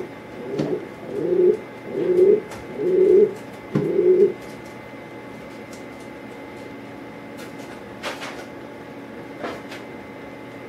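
Pigeon cooing: five low coo notes in quick succession, about one a second, over the first four seconds. A couple of faint clicks follow near the end.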